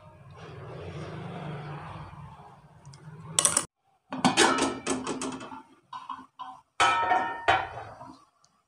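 Soft rustling of hands working dough on a mat. Then a large aluminium cooking pot clanks and rings as a wire trivet stand is set and shifted inside it: several metal-on-metal knocks, each ringing briefly. The pot has been heating on the stove for stovetop baking.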